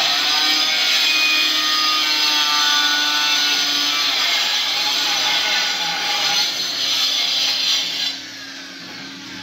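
A power tool running with a steady, harsh grinding noise that cuts off about eight seconds in.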